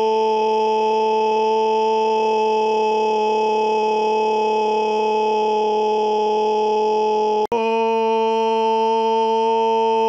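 A loud, long held scream on one steady pitch, breaking off for an instant about seven and a half seconds in and then carrying on.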